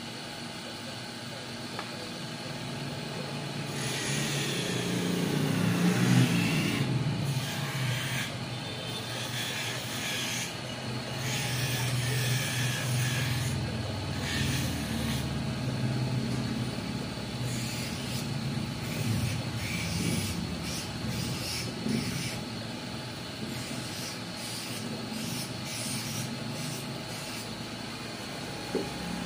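Electric hand lens edger running with a steady motor hum. An eyeglass lens is pressed against its grinding wheel to smooth the edge, giving rasping grinding sounds on and off, loudest in the first half.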